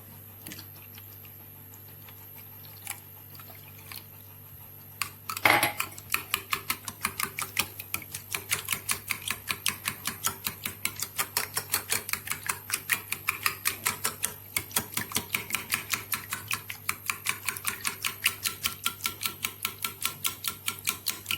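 Egg and milk batter being beaten in a bowl, heard as a rapid, even clicking of a utensil against the bowl at about four to five strokes a second. It starts after a single knock about five seconds in, following a few quiet seconds.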